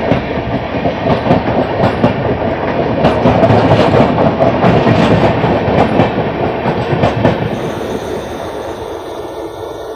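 Howrah–SMVB Duronto Express passing close alongside on the adjacent track: a loud rush of coaches with wheels clattering over rail joints. It fades near the end as the last coach goes by.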